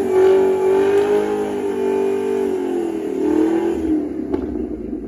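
A 2017 Camaro ZL1's supercharged V8 is held at high, steady revs during a line-lock burnout, the rear tyres spinning in place. About three seconds in the revs waver and dip, then drop away near the end.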